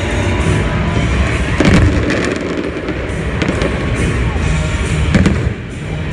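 Fireworks bursting, with several sharp bangs (the loudest about a second and a half in and again about five seconds in) over steadily playing music.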